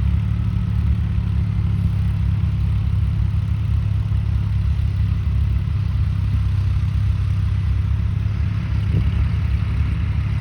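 Tractor engine running steadily with a low, even hum and no change in speed.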